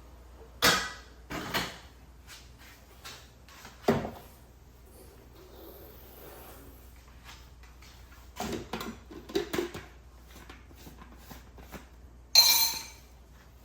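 Kitchen handling noise: dishes, utensils and containers knocked and set down in a handful of separate clatters and clinks, with the loudest harsh clatter near the end.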